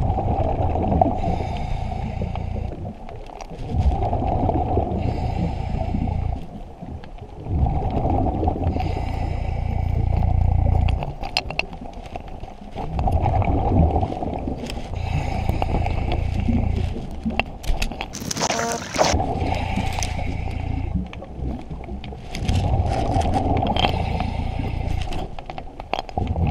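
A scuba diver breathing through a regulator underwater: a hiss on each inhale alternates with the rumble of exhaled bubbles, about six breaths in all. A short shrill squeal sounds about two-thirds of the way through.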